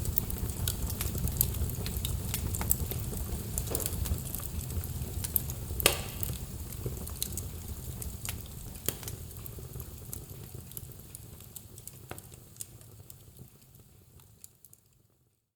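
Wood fire in a fireplace crackling, with frequent sharp pops over a low rumble of flame. One pop about six seconds in is the loudest. The sound fades out gradually to silence near the end.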